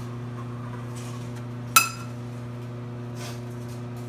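Metal kitchenware clinking once, sharply, about two seconds in, with a short ring. A steady low hum runs underneath.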